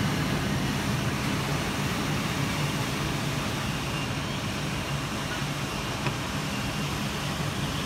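Heavy downpour in a thunderstorm: a steady wash of rain noise mixed with city traffic noise from the wet roads.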